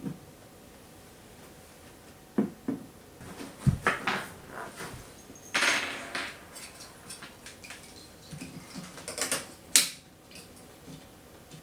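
Irregular clicks and knocks of hard objects being handled, with a dull thump about three and a half seconds in, a brief scraping rustle near the middle and a cluster of louder knocks near the end.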